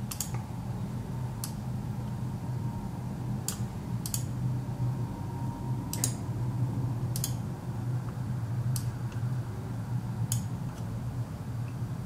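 Computer mouse clicking about eight times, spaced irregularly, over a steady low hum.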